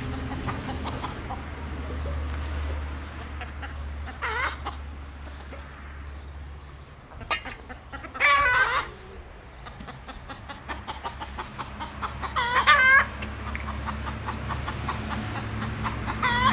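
Domestic chickens calling: four short calls spread about four seconds apart, the second and third the loudest, over a steady low hum.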